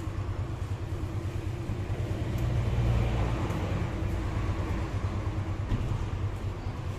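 Small single-cylinder motorcycle engine idling with a steady low, pulsing hum.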